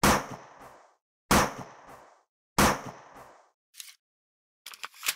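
Logo-intro sound effects: three loud, sharp bangs about 1.3 seconds apart, each followed by a smaller second hit and a short fading tail, then a few brief faint clicks near the end.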